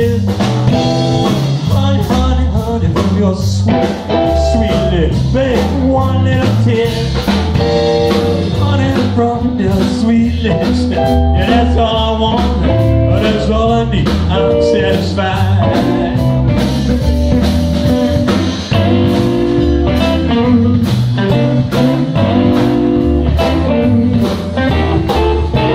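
Live blues band playing an instrumental stretch: electric guitars over a drum kit keeping a steady beat.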